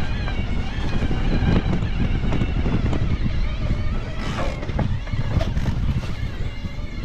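Wind buffeting the microphone over the rumble and rattle of a bike rolling fast along a dirt forest trail, with frequent small knocks as it runs over bumps.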